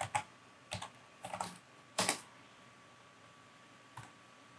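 Typing on a computer keyboard: a short run of key taps over the first two seconds, ending in a louder keystroke as the command is entered. After that it goes quiet apart from one faint click about four seconds in.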